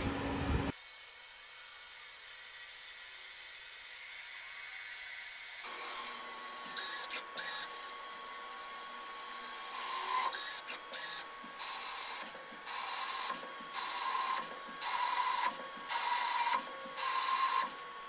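CNC lathe cutting a thread on a metal shaft in repeated passes: a steady whine, with a short burst of cutting noise on each pass, roughly one a second through the second half. A louder stretch of turning noise cuts off under a second in.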